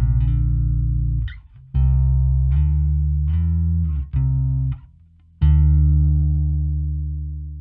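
Fender Vintera '60s Mustang short-scale bass played direct through an amp-simulation plugin. It plays a phrase of plucked low notes, then a last note from about five and a half seconds in that is left to ring and fade away.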